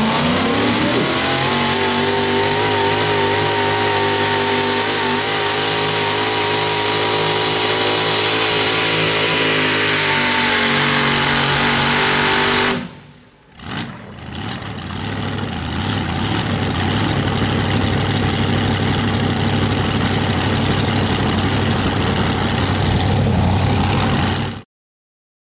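Super modified four-wheel-drive pulling truck's engine revving up over the first two seconds and then running hard at high revs, easing down slightly. It breaks off abruptly about halfway through, then runs again rougher and lower-pitched until it cuts off sharply near the end.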